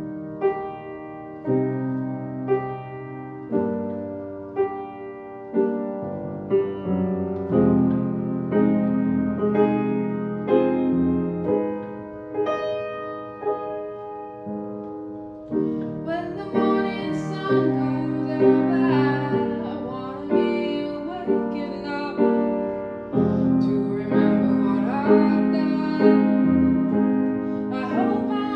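Grand piano playing a slow introduction, chords struck about once a second. About halfway through, a woman's voice begins singing over the piano.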